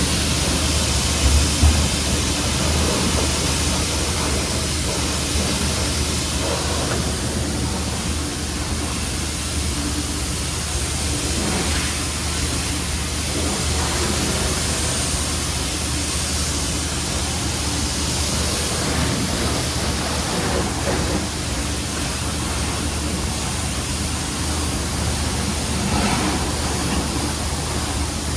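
Steady road and wind noise of a car driving at speed, heard from inside the cabin, with a low steady hum underneath.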